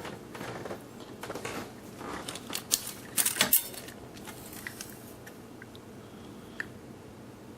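Light metallic clinking and rattling from metal hardware being handled, with several quick clicks, strongest a little after three seconds. Only a few faint ticks follow in the second half.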